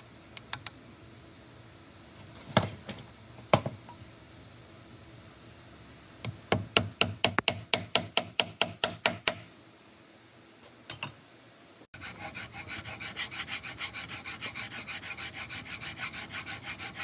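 Wood being filed or rasped by hand in quick back-and-forth strokes, about five a second. Two sharp knocks come before the first run of strokes, and a steadier, even run of strokes follows near the end.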